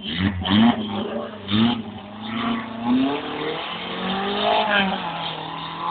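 Off-road vehicle engine revving, its pitch rising and falling in repeated surges as the throttle is blipped and eased.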